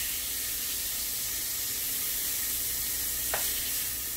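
Asparagus pan-roasting in a hot skillet, a steady frying sizzle. One light click a little over three seconds in.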